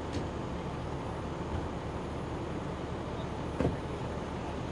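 Steady low rumble of vehicles, with a short knock about three and a half seconds in and a fainter one just after the start.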